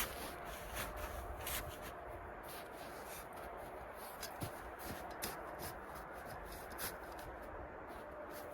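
Rustling and handling noises: scattered soft clicks and rubs over a steady low hiss.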